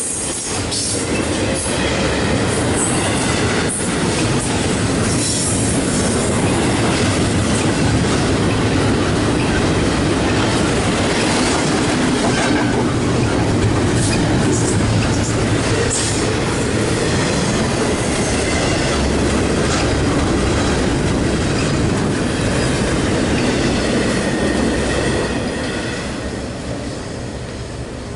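Double-stack container well cars of a Norfolk Southern intermodal freight train rolling past close by: steady, loud rumble of steel wheels on rail, with scattered clacks and occasional brief wheel squeals. It fades near the end as the last cars go by.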